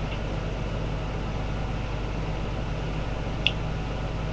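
Steady low electrical hum, with one short sharp click about three and a half seconds in.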